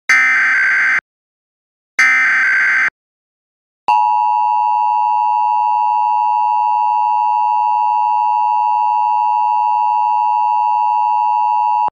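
Emergency Alert System tones from an EAS encoder program: the last two of the SAME header data bursts, short buzzy screeches about a second long and a second apart. About four seconds in, the steady two-tone EAS attention signal starts and holds for about eight seconds before cutting off.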